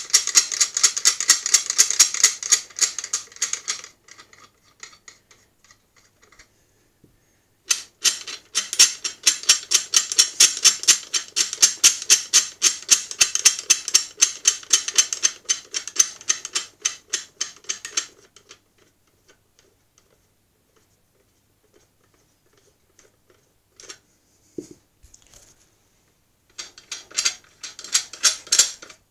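Steel nuts being spun off the threaded rods of a bottle-jack press's top plate by hand: fast, even metallic clicking, about five clicks a second, in three runs with pauses between, the longest in the middle.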